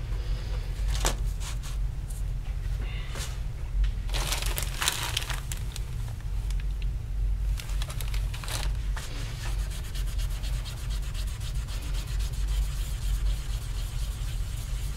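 A copper printing plate being rubbed by hand with an abrasive to clean the surface and take out imperfections: irregular scratchy strokes, heavier in the first half and finer later, over a steady low hum.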